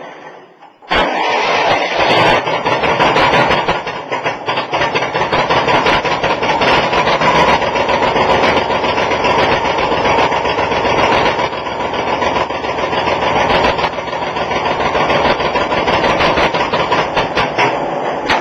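Old gasoline tractor engine running loudly and steadily, with a fast, rattly firing beat. The sound drops out briefly at the start and comes back abruptly about a second in.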